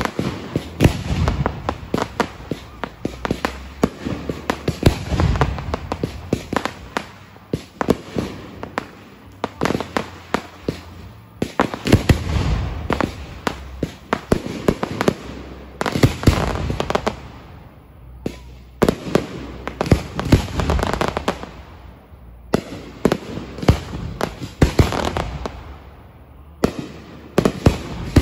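Fireworks going off in rapid volleys of sharp bangs and crackling, with short lulls between volleys.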